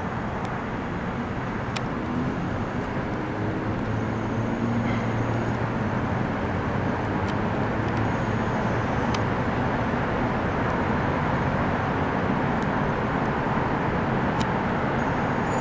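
Steady outdoor background rumble over a city, growing a little louder in the first few seconds and then holding even, with a few faint clicks.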